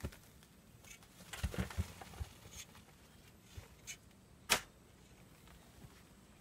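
Shovel digging into loose, stony soil: a cluster of scraping thuds about a second and a half in, a few small clicks, then a single sharp knock about four and a half seconds in.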